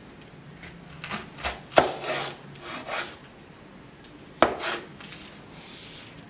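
Cleaver cutting through bok choy stalks and knocking on a bamboo cutting board: a run of crisp cuts and scrapes in the first three seconds, the loudest nearly two seconds in, then one sharp knock past four seconds.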